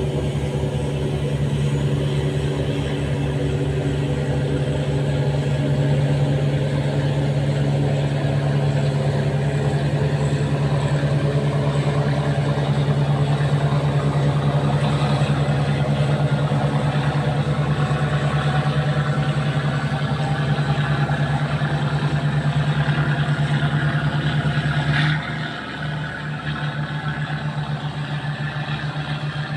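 Diesel engine of a river tugboat towing a train of cargo barges, running steadily with an even low pulsing. Near the end there is a sharp click and the engine sound drops briefly before carrying on.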